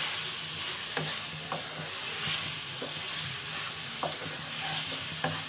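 Chicken pieces and spice masala sizzling in hot oil in a wide metal pan while a spatula stirs them, with a steady hiss and a few sharp knocks of the spatula against the pan.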